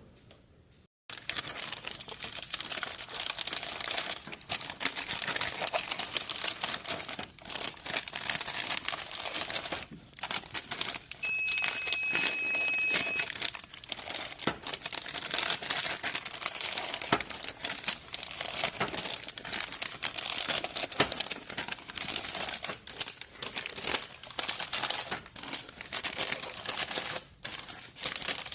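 Plastic chip bags crinkling and rustling as they are handled, flattened and slid into a vending machine's spiral slots, with many small clicks and crackles throughout. Near the middle a steady beep sounds for about two seconds.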